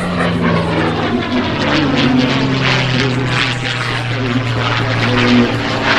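North American P-51 Mustang flying past, its V-12 piston engine and propeller running steadily. The engine note drops in pitch about a second and a half in as the aircraft passes.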